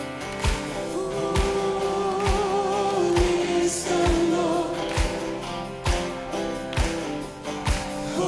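Background music: a song with a steady drum beat, a singing voice coming in about a second in.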